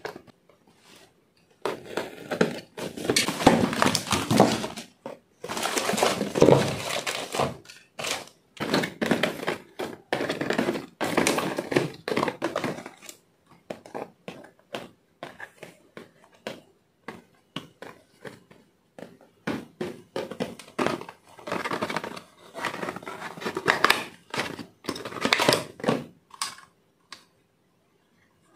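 Cardboard packaging being handled: small product boxes scraped and slid against each other and against the carton, with rustling, crinkling and light knocks coming in irregular bursts. It is busiest in the first half and again toward the end, when a downlight is taken out of its box and plastic wrap.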